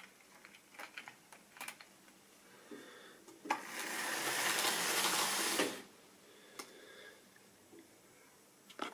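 Model railway locomotive running past close by: a loud, even whirring of its electric motor and wheels on the track for about two seconds, starting and stopping sharply. Before it there are a few light clicks of wheels and rolling stock on the track.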